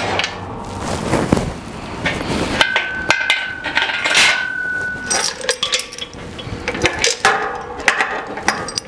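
Irregular metal clanks and knocks of hand tools and parts at an air compressor's mounting frame during installation of vibration isolators, with a steady high tone for a couple of seconds in the middle.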